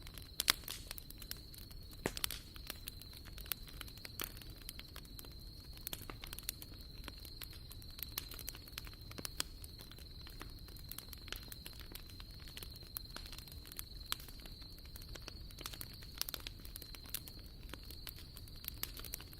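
Campfire crackling, with irregular sharp pops and snaps throughout, the loudest just after the start and about two seconds in. A thin, steady high tone runs underneath.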